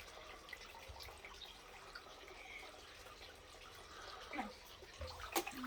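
Faint water dripping and lapping in a bathtub, with a sharp click shortly before the end.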